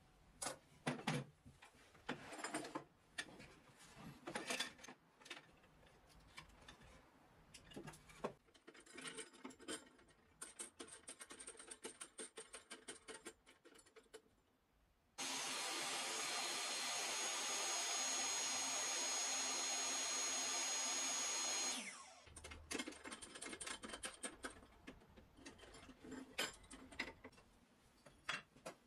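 Knocks and clicks of a wooden board and aluminium jig clamps being positioned and tightened on a table saw's sliding table. In the middle, a power tool runs steadily for about seven seconds, with a thin high whistle, starting and stopping abruptly; it is the loudest sound.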